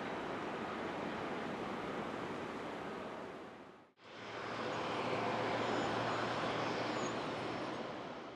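Steady rushing roar of aircraft jet engines, fading out about four seconds in and fading back up. A faint low hum runs under the second part.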